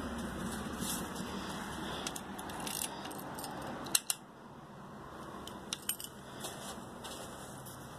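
Keys jingling, with a few light metallic clicks and taps over a faint steady hiss. The sharpest click comes about four seconds in.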